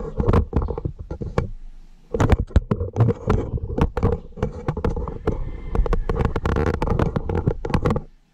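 Dense close-up crackling and clattering of hands working at the wiring near the microphone, over a steady low rumble, cutting off abruptly near the end.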